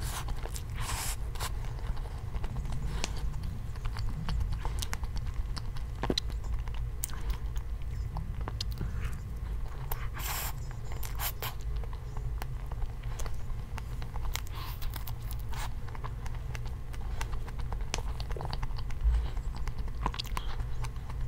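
Close-miked chewing and mouth sounds of someone eating soft strawberry cream sponge cake, with scattered small clicks of a fork.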